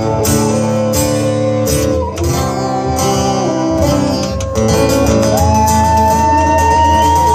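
Live acoustic band playing an instrumental break: two acoustic guitars strumming hard while a fiddle plays the lead. In the second half the fiddle holds one long high note that slides down at the end.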